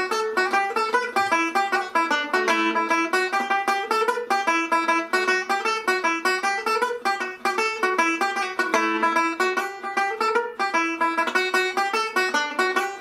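Irish tenor banjo played solo: a steady, quick stream of picked single notes in a lively Irish reel melody.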